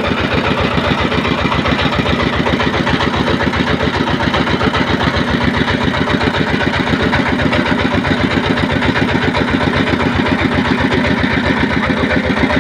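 Fishing boat's engine running steadily, a fast even chugging of about seven beats a second.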